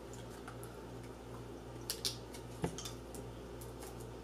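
Plastic wrappers of small chewy fruit candies being peeled open by hand, giving a few faint crinkles and crackles around two seconds in and a soft knock a little later, over a steady low hum.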